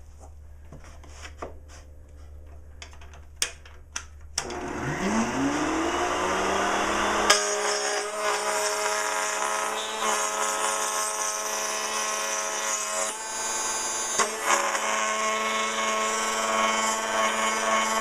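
A few light clicks, then a Porter Cable router in a router table starts about four seconds in, its whine rising as the motor spins up. It then runs steadily while a board of dry pine is fed past a 5/8-inch straight bit, cutting a groove.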